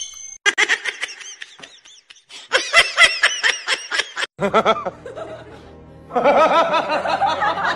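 Repeated bursts of high-pitched laughter and giggling over background music, coming in short runs that grow louder and denser near the end.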